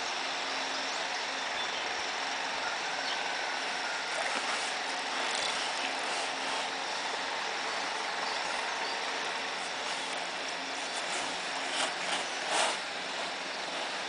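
A steady hiss with a faint low hum under it, and a few brief louder noises near the end.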